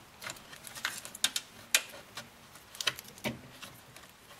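Scattered light clicks and ticks of plastic HID wiring-harness connectors and cables being handled and plugged together, male to female.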